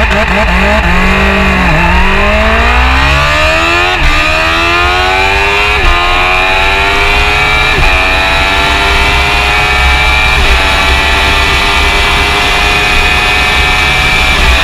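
Kawasaki Ninja H2R's supercharged inline-four engine at full throttle, revving up through the gears. The pitch climbs in each gear and dips sharply at every upshift, about every two seconds at first and further apart in the higher gears, over a steady high whine.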